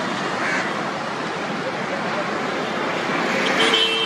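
Steady rushing noise of road traffic passing on a bridge, with a short vehicle horn toot near the end.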